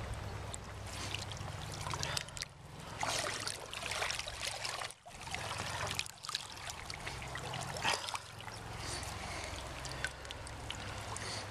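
River water trickling and lapping, with scattered short knocks and rustles close to the microphone.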